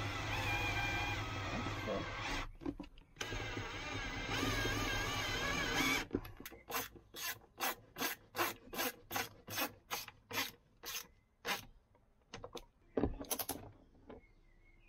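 Screws being driven to fasten a mounting plate into rivet nuts in a van wall. A continuous whirring run with a short break is followed by about a dozen rasping strokes, roughly two a second.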